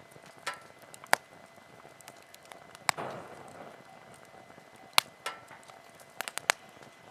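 Wood fire crackling: scattered sharp pops, about eight in all, with a brief hiss following one about three seconds in.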